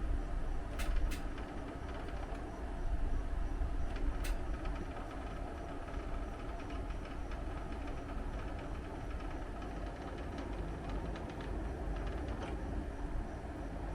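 Split air conditioner indoor unit running, with a steady low rumble and rattle. There are a few sharp clicks about a second in and again near four seconds.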